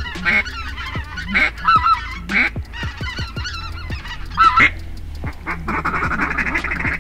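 A large flock of geese honking as it flies overhead, many calls overlapping. About five and a half seconds in, the sound thickens into a denser, steady stretch.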